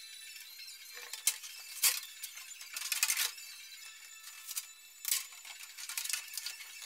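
Red PEX plastic water tubing being pulled and fed through a bundle of other PEX lines by hand: a scattering of sharp clicks, knocks and scrapes as the tubing rubs and taps against other tubing and the manifold.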